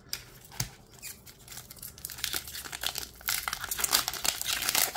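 Foil wrapper of a Pokémon trading card booster pack crinkling and tearing as it is ripped open by hand, starting about two seconds in and getting louder toward the end. A few soft taps come before it.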